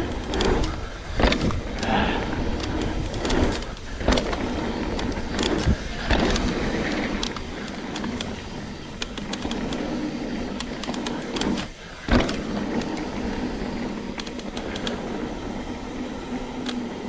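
Trek Slash full-suspension mountain bike ridden down a dirt trail: steady rushing tyre and ride noise, broken by sharp knocks and rattles as the bike goes over bumps.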